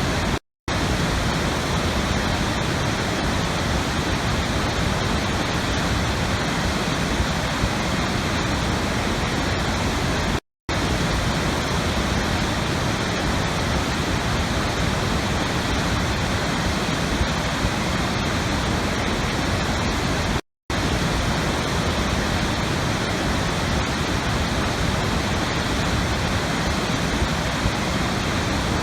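Steady rushing water like a waterfall, an even dense hiss at a constant level. It cuts out to silence for a split second three times, about every ten seconds, where the recording loops.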